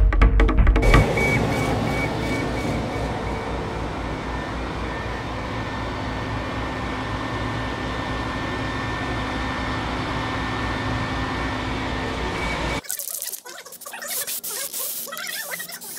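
A steady machine drone with a few steady whining tones, which cuts off abruptly about thirteen seconds in; after it come only faint, intermittent hisses and clicks.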